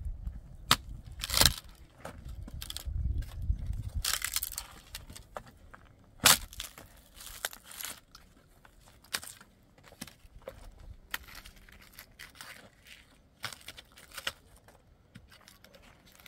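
Scattered clatter and crackling of things being handled, with sharp knocks; the loudest knock comes about six seconds in. A low rumble runs underneath for the first four seconds.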